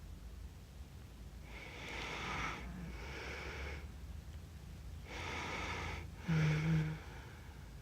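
A sleeping person breathing heavily and snoring: two long, noisy breaths, each drawn in and let out. The second ends in a short, loud snore with a low buzzing tone near the end.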